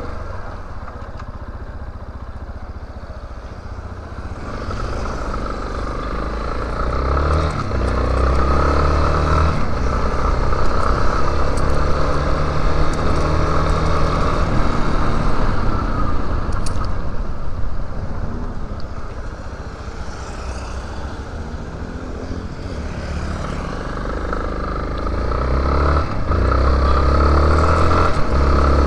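Yamaha Lander 250's single-cylinder four-stroke engine running under the rider, heard from a helmet camera. It pulls harder from about four seconds in, with short breaks as it shifts up, eases off in the middle, and speeds up again near the end.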